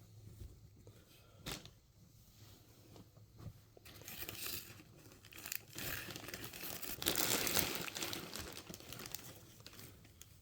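A bag crinkling as it is rummaged through, with a few light handling knocks in the first seconds and the crinkling loudest past the middle.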